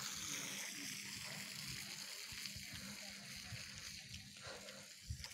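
Water hissing from a garden hose spraying onto grass, fading over the last couple of seconds, with a low rumble underneath.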